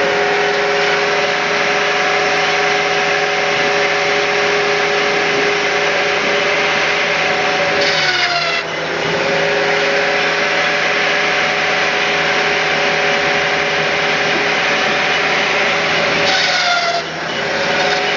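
Cord King firewood processor running steadily, its engine and hydraulics giving a constant whine. Twice, about eight seconds apart, a brief high whine falls in pitch and the running note dips for a moment.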